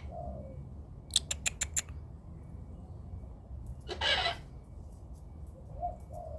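A single harsh squawk about four seconds in, of the kind a sulphur-crested cockatoo gives, after a quick run of about six sharp clicks about a second in. Faint low calls come near the start and near the end.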